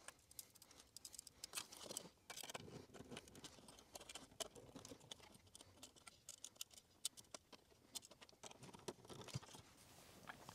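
Faint, irregular clicks and scratches of a small screwdriver turning terminal screws and wires pressing against a plastic smoke detector base.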